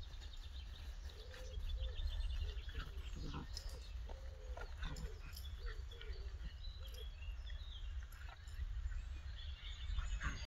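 Whippet puppies play-fighting, giving many short yips and whines one after another, over a steady low rumble.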